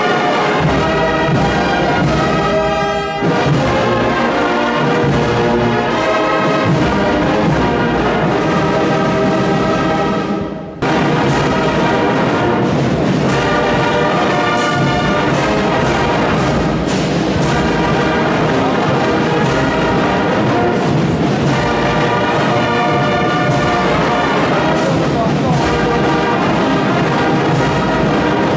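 Brass band music playing slow, sustained chords, broken by a short sudden gap about eleven seconds in before it resumes.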